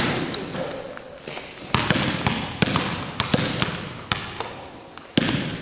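Basketballs bouncing on a gym floor as children dribble, sharp bounces at an uneven pace of about three a second, each echoing and dying away in the large hall.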